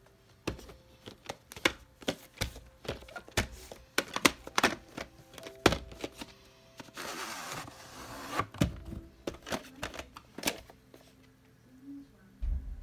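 Plastic VHS tape case being handled on a carpeted floor: a quick irregular series of clicks and knocks, with a rustling stretch about seven seconds in.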